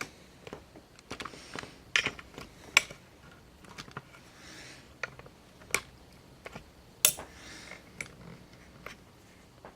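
Lock pick and tension wrench working in an ACE 2-inch rekeyable padlock: light, irregular metal clicks and scrapes, with a few sharper ticks.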